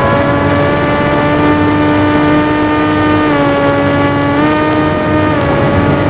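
Brushless outrunner motor and 1060 propeller of a Volantex Ranger EX 757-3 RC plane running in flight: a steady whine whose pitch shifts slightly a few times, heard from the onboard camera over low rumbling wind noise.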